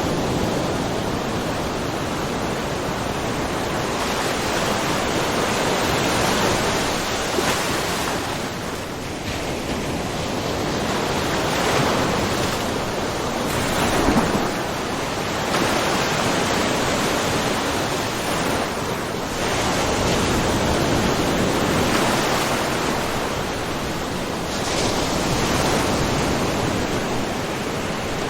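Small ocean waves lightly splashing and washing in a cove, a continuous wash that swells and eases every few seconds.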